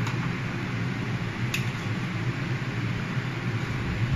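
Steady fan hum with a light hiss, with a single short click about one and a half seconds in.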